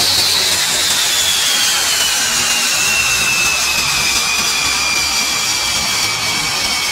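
MiG-29K fighter's twin jet engines running loud, a rushing noise under a high whine that falls steadily in pitch as the engines throttle back after an arrested landing.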